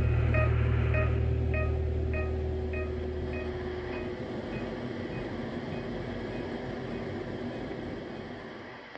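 Background music ending: a repeated high note echoing and dying away over a sustained bass, both stopping about four seconds in. A steady rushing noise remains underneath and fades out with it.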